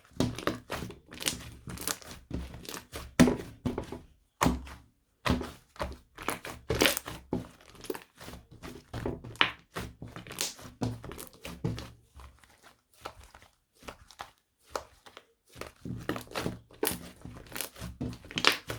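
Hands squishing, poking and stretching a thick toffee slime: irregular sticky clicks, pops and soft thunks, coming in quick clusters with short pauses.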